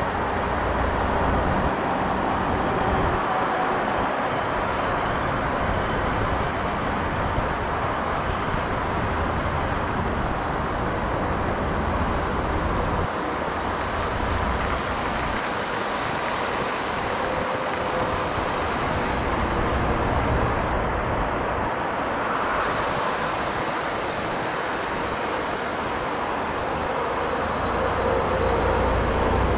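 Steady outdoor background rumble and hiss, with a low rumble that swells and drops away at intervals.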